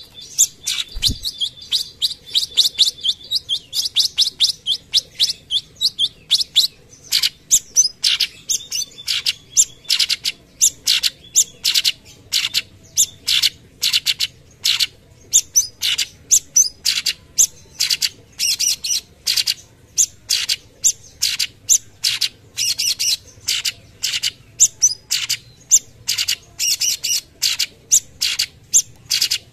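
Orange-bellied leafbird (cucak cungkok) singing: a quick high trill at first, then a long series of short, sharp 'shot' notes, about two to three a second.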